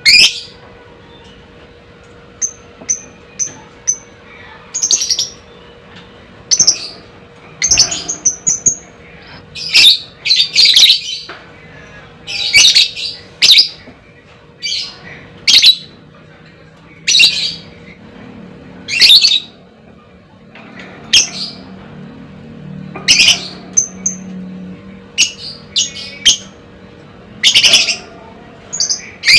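Lovebird calling: short, shrill chirps and squawks repeated irregularly about once a second, some in quick doubled bursts, over a faint steady hum.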